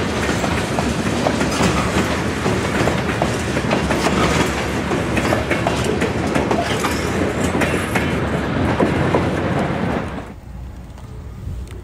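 Freight train of covered hopper cars rolling past, its steel wheels clicking over the rail joints. About ten seconds in the sound drops abruptly to a much quieter steady background.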